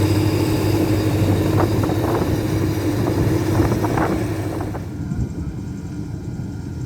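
Farm tractor engine running steadily under load, with a few short metallic rattles around the middle. The higher hiss drops away about five seconds in.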